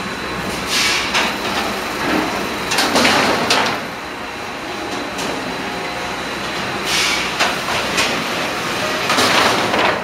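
Sawmill line machinery running: belt conveyors and chain-driven roller tables make a steady mechanical rumble, broken by several louder clatters of sawn wooden boards knocking along the line.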